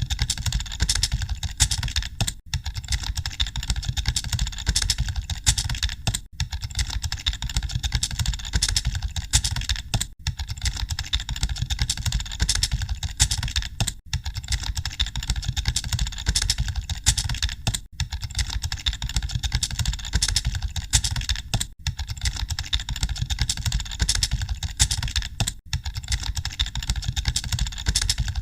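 Continuous fast typing on computer keyboards, a dense clatter of keystrokes, broken by brief dropouts about every four seconds.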